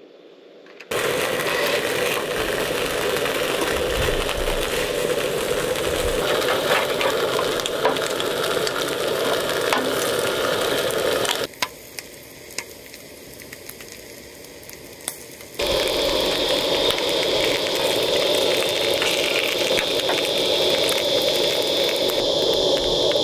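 Bacon and eggs sizzling in a frying pan, a steady loud frying hiss that drops away for about four seconds midway, with a few clicks, then comes back. A steady high chirring, likely crickets, sits under the sizzle near the end.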